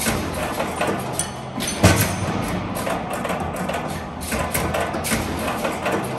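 Background music with a percussive beat and many short knocks, with one heavier thump about two seconds in.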